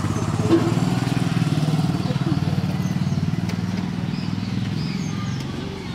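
Motorcycle passing by, its engine running steadily and growing fainter as it moves away.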